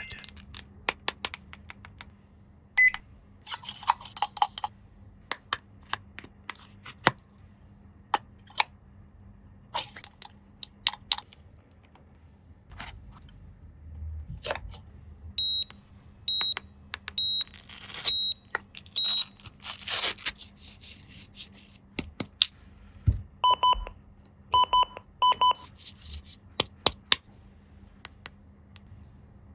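Plastic toy pieces and packaging being handled: scattered sharp clicks and taps with a few crinkling rustles. A toy's electronic beeper sounds twice: a run of about five short high beeps in the middle, then three or four short lower, buzzier beeps a little later.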